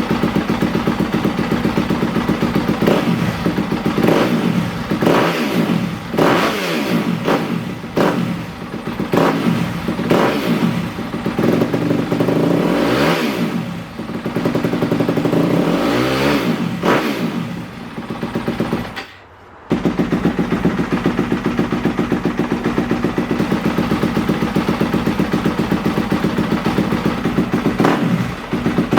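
2020 Yamaha YZ250F's single-cylinder four-stroke engine breathing through an FMF 4.1 full exhaust with carbon tip, blipped again and again in quick rising and falling revs. There is a brief gap about 19 seconds in, after which it runs steadily at idle.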